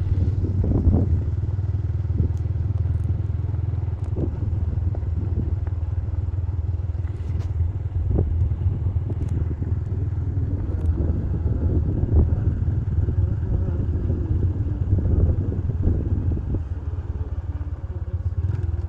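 Motorcycle riding along at a steady speed: a continuous low engine hum with uneven rumble over it.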